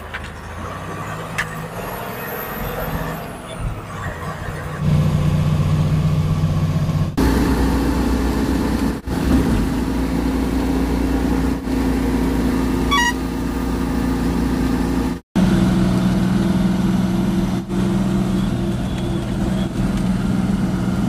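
Diesel truck engine running steadily on the move, heard from inside the cab. It gets louder about five seconds in and cuts out abruptly for a moment about three quarters of the way through.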